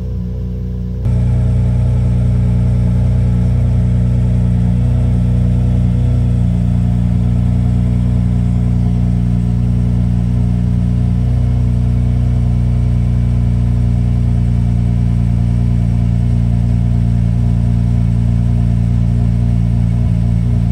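Lamborghini Murcielago V12 idling steadily shortly after a cold start. It gets suddenly louder about a second in, then holds an even pitch with no revs.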